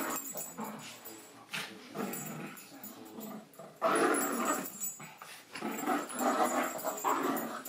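Two small dogs play-fighting, growling in several rough bouts of a second or so, loudest about four seconds in and again near the end.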